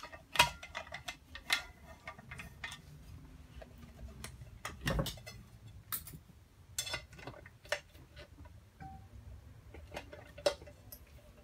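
Irregular clicks, taps and light clatter of hand tools against the plastic and metal housing of an LG top-load washer clutch assembly being taken apart, with a heavier knock about five seconds in.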